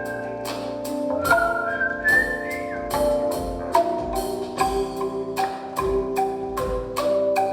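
Calung renteng, a row of tuned bamboo bars, struck in a steady rhythm of quick pitched notes. A held higher melodic line steps upward in pitch between about one and two and a half seconds in.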